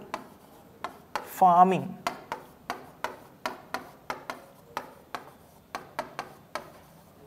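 Marker pen writing on a board: a run of short, sharp clicks and taps, several a second, as each letter stroke is drawn.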